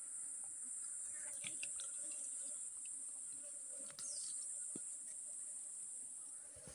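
Steady high-pitched insect chorus droning continuously, with a few faint short chirps and ticks over it.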